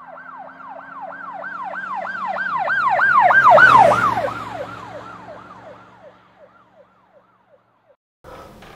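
Emergency-vehicle siren passing by: a fast repeating falling wail, about three a second, growing louder to a peak about three and a half seconds in, then dropping slightly in pitch and fading away.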